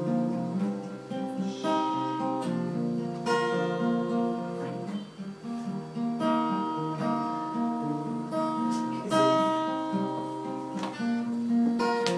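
Acoustic guitar playing an intro, strummed chords with held, ringing notes.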